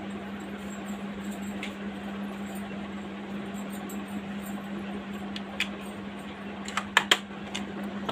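Steady low hum, with a few light sharp clinks of bangles knocking together, most of them about five to seven seconds in.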